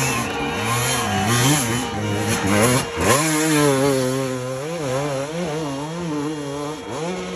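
Enduro dirt bike engines revving hard on a steep climb, the pitch swinging rapidly up and down with the throttle. The sound changes abruptly about three seconds in, when another bike's engine takes over.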